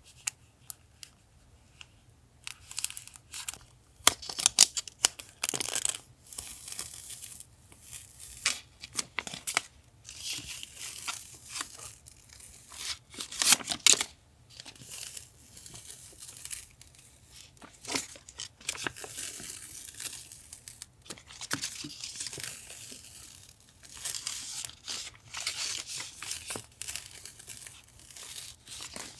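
Paper being torn and handled: irregular rips and rustles that start a couple of seconds in, loudest around four seconds in and again around thirteen seconds.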